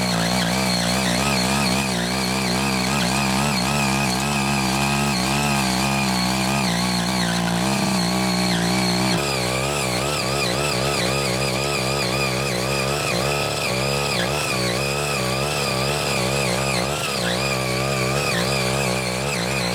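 Engine of a CY80 mini power tiller running under load as its rotary tines dig through orchard soil. Its pitch wobbles steadily up and down as the load on the tines changes.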